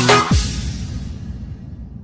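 Electronic dance music with a deep bass-drum kick. It stops about a third of a second in and then fades out.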